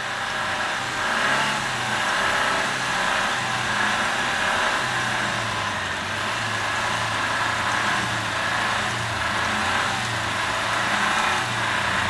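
Suzuki Samurai engine running under load, its revs rising and falling unevenly as the vehicle works its way out of deep snow.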